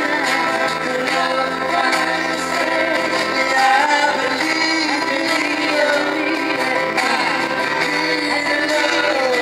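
Live island reggae band playing a song, with acoustic guitars and singing.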